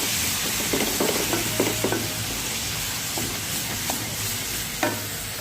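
Tomato paste and spice masala frying in oil in a pan, sizzling steadily, while a spoon stirs it and knocks and scrapes against the pan several times.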